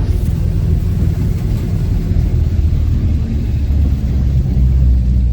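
Car running, a steady low rumble of engine and road noise.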